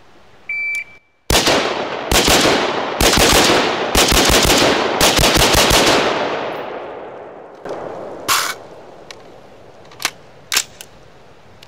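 A shot timer beeps once, then a 5.56 short-barreled rifle fires a quick run of shots in growing strings (one, two, three, four, five rounds: fifteen in all) over about four and a half seconds, the reports echoing and fading after the last shot.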